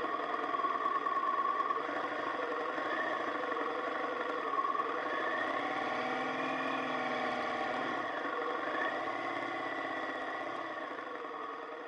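Motorcycle engine running steadily, its pitch drifting up and down a little, growing quieter near the end.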